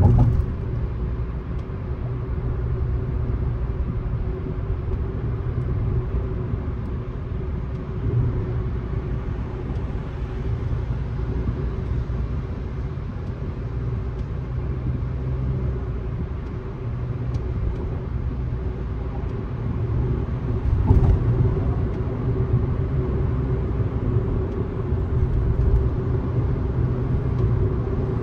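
Car driving at a steady speed: a continuous low rumble of tyres and engine with a steady hum, and a brief louder bump about three quarters of the way through.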